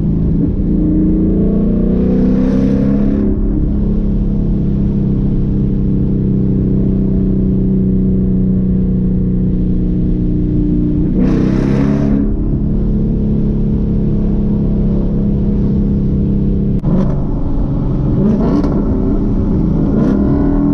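Ford Mustang S550's 5.0 V8 engine heard from inside the cabin while driving, running steadily with its pitch sweeping up a few times as it accelerates.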